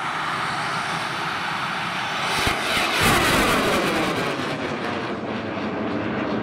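Thai bang fai black-powder festival rocket burning as it lifts off and climbs: a continuous rushing roar that swells about three seconds in, then takes on falling, sweeping tones as the rocket rises away.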